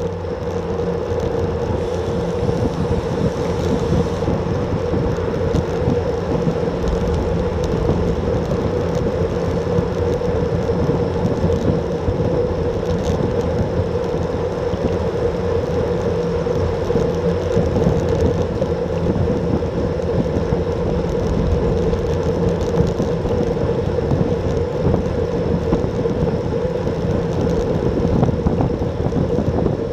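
Steady rush of wind over the microphone of an action camera mounted on a road bike at about 36 km/h, mixed with the rumble of the bike's tyres on asphalt and a steady hum underneath.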